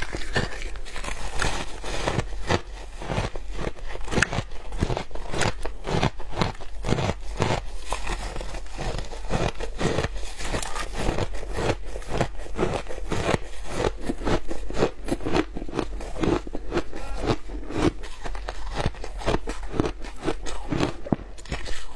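Shaved ice crunching as it is bitten and chewed close up, with handfuls of ice squeezed in a gloved hand: a dense, unbroken run of sharp crunches, several a second.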